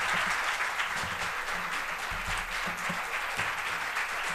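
A large audience applauding, many hands clapping together in a dense, steady patter that eases slightly towards the end.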